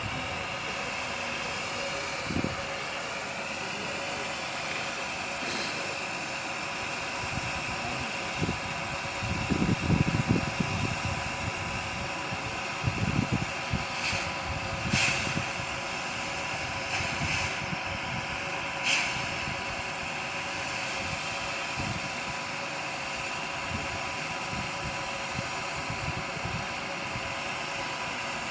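Steam locomotive 16.27 on a depot turntable as it is turned: a steady mechanical whine runs throughout, with low rumbling surges about a third of the way in and a few sharp clanks around the middle.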